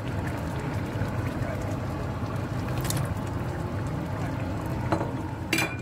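Thick goulash bubbling steadily as it simmers in a frying pan, with a few sharp clicks in the second half, the loudest near the end.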